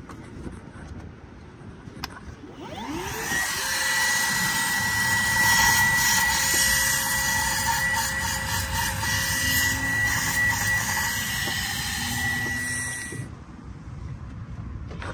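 Milwaukee Fuel brushless cordless vacuum switched on: its motor winds up with a rising whine about two to three seconds in, then runs with a steady high whine and rush of air as its adapter tube sucks debris out of a spark plug tube. It shuts off suddenly about thirteen seconds in.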